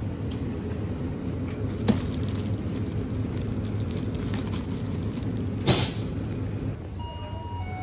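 Thin plastic bags around single bananas crinkling as they are picked up and handled, with a louder rustle about six seconds in, over a shop's steady low hum. A few electronic chime tones start near the end.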